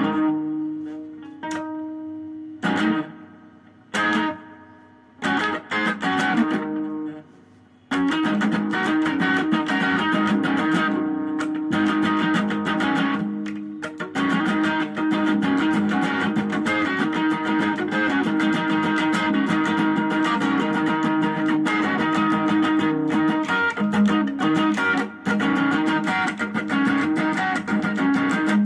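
Stratocaster-style electric guitar improvising rhythm. For the first eight seconds or so, single chords are struck and left to ring, with short gaps between them. After that a continuous, busy rhythm of picked and strummed notes takes over.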